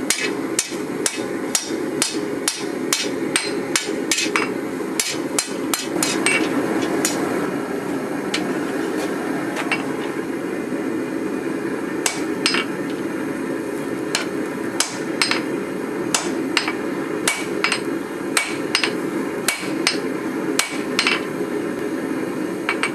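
Hammer blows on a hot steel sword blank on an anvil, struck at an uneven pace, about two a second at times and sparser around the middle, while the tang area is being isolated. A steady rushing noise runs beneath the strikes.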